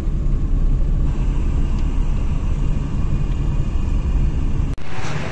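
Car road and engine noise heard from inside the cabin while driving: a steady low rumble. It cuts off abruptly near the end, giving way to a quieter ambience.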